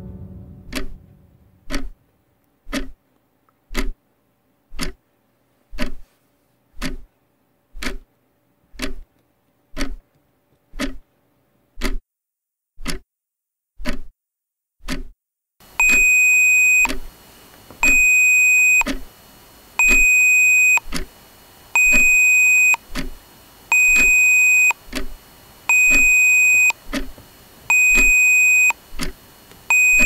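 Clybot C6 Arduino robot's alarm clock sounding through its small built-in speaker: a tick once a second, then about halfway through the alarm goes off, a high beep about a second long repeating every two seconds while the ticks carry on.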